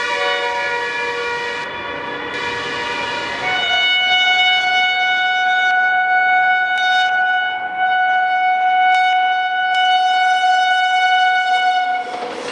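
A WAP-7 electric locomotive's horn sounds continuously as the train approaches. About three and a half seconds in it switches to a louder, different held chord, which cuts off near the end as the rushing noise of the train passing at speed begins.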